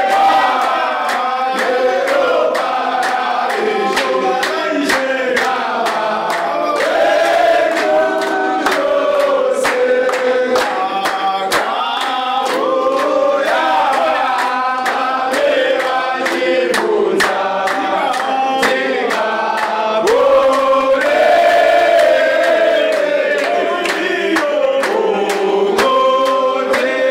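A group of men's voices singing together, with hand claps keeping time.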